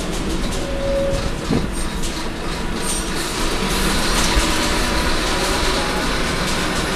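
Cabin noise of a Scania K230UB city bus under way: its rear-mounted Scania DC9 five-cylinder diesel running with a low rumble, mixed with road noise and scattered clicks and rattles from the body and fittings.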